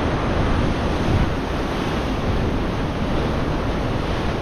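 Ocean surf breaking and washing against shoreline rocks, a steady noise of swell, with wind buffeting the microphone.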